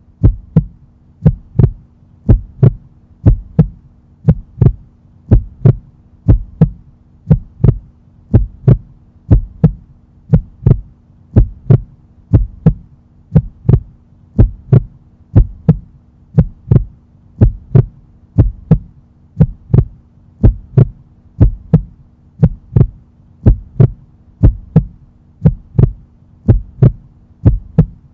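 Heartbeat sound effect: a steady lub-dub pulse of low thumps, about one double beat a second, over a constant low hum.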